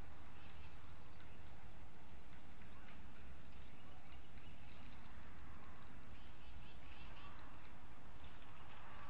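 Outdoor ambience: scattered short bird calls over a steady low rumble.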